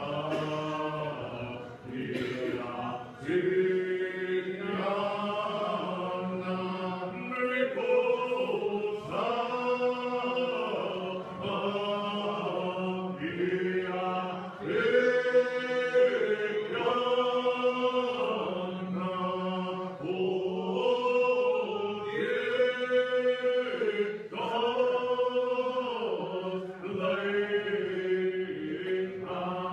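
Church congregation singing a hymn in the Muscogee Creek language, many voices holding long notes in slow phrases.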